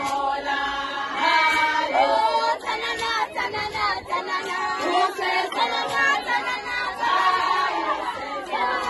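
Large group of girls and women singing a song together, many voices overlapping.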